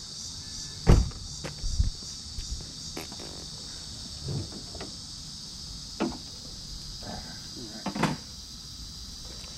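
Crickets chirring steadily, with a few scattered knocks and clunks over them; the loudest knocks come about a second in and near the end.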